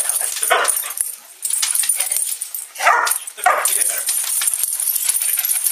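Dogs barking and whining in short separate calls, the loudest about three seconds in.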